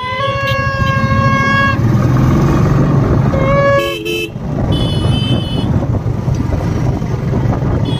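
Vehicle horns honking: one long blast of nearly two seconds, then two shorter honks of different pitch about halfway through. Under them is the steady rumble and wind noise of a moving motorcycle.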